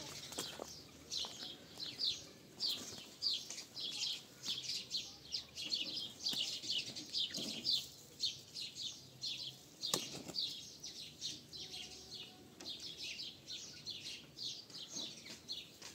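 Many small birds chirping busily, short high chirps several times a second without a break, with a single sharp knock about ten seconds in.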